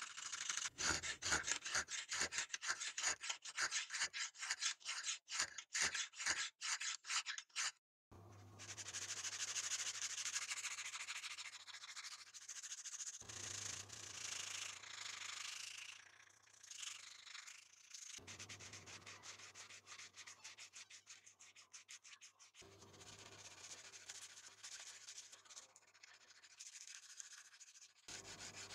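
A file rasping across a steel knife blade in quick, regular strokes, about three a second. After a break, abrasive paper is rubbed back and forth by hand along the steel blade, giving a steady scratchy hiss.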